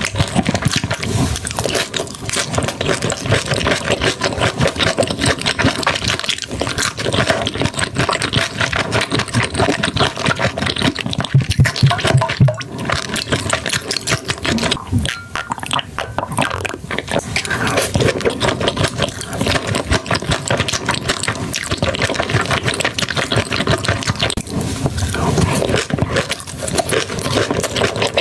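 Close-miked eating of seafood: continuous chewing, smacking and crunching, a dense run of rapid wet clicks and crackles.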